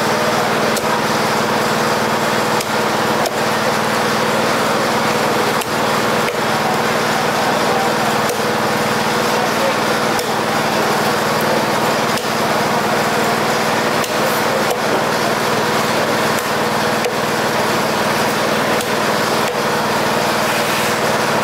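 A small engine runs steadily throughout, with irregular sharp knocks of a knife and cleaver striking a thick chopping block as fish is cut into steaks.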